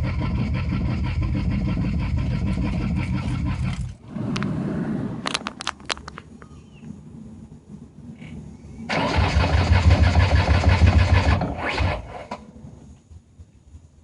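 A 1993 Ford Taurus SHO's 3.0-litre Yamaha V6 cranking on the starter without catching, in two spells of a few seconds each with a few sharp clicks between them. It cranks as if it wants to start but never fires, even after a new fuel pump, injectors and ignition parts.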